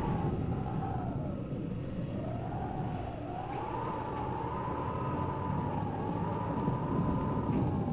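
Eerie Halloween sound effect: a wavering, whistle-like tone that sinks in pitch about a second and a half in, climbs back up, then keeps wobbling, over a steady low rumble.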